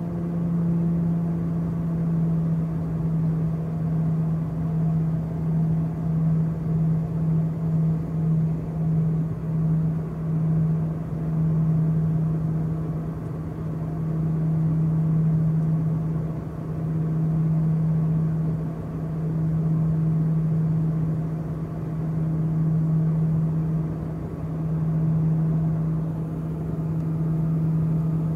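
Cabin drone of a small twin-engine turboprop plane in its climb after takeoff: a loud, steady low propeller hum that pulses, in quick throbs for a few seconds and then in slow swells, as the two propellers drift in and out of step.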